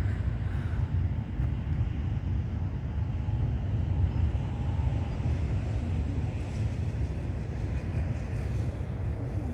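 Wind rumbling on the microphone: a steady, noisy low rumble with no clear events.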